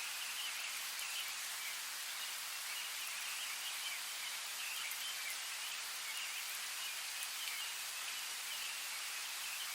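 Steady rain falling on forest foliage, an even hiss, with faint high chirping from birds running through it.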